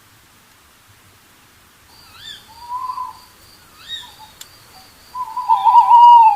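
An unidentified night animal calling repeatedly: a few short rising calls, then a loud, wavering, drawn-out call over the last second or so.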